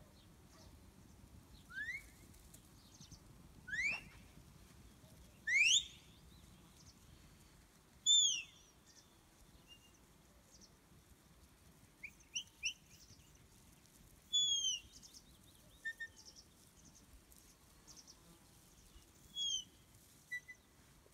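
A shepherd's whistle commands to a working border collie: a series of short, loud whistled notes a few seconds apart. The first three rise sharply in pitch, and the later ones arch up and fall.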